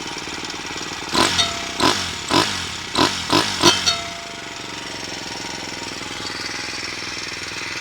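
Monkey-style minibike's Kitaco 124cc four-stroke single running at idle with a fast, chopping beat. About a second in, the throttle is blipped sharply six times in quick succession, and each rev rises and drops back at once before the engine settles to idle again.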